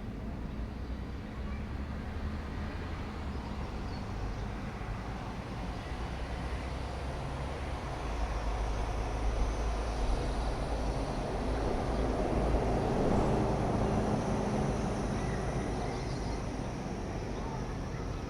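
Urban park ambience: a steady low hum of distant traffic. A louder passing-vehicle rumble builds from about halfway, peaks and fades over several seconds. Faint bird chirps sound now and then.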